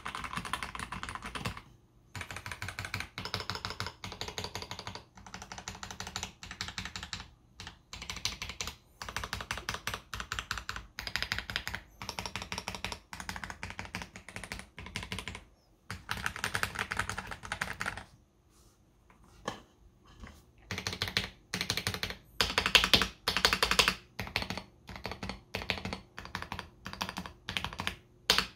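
Mechanical keyboard with lubed AKKO CS Jelly Pink switches being typed on in quick runs of keystrokes, broken by short pauses. There is a lull about two thirds of the way through, and the typing is louder after it.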